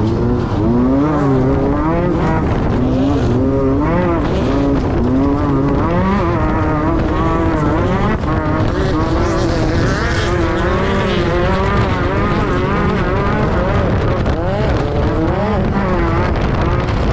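Class 10 off-road race buggy's engine running hard, its pitch rising and falling every second or so with constant throttle changes.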